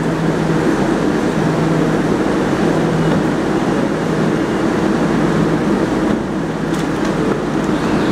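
R142A subway train standing at the platform with its doors open, its on-board equipment running with a steady hum and hiss. The level dips briefly about six seconds in.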